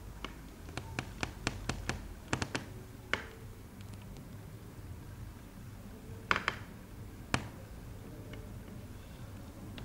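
Fingertips tapping on a hard floor in sharp clicks: a quick, uneven run of about ten taps in the first three seconds, then a short cluster of taps and one single tap a few seconds later.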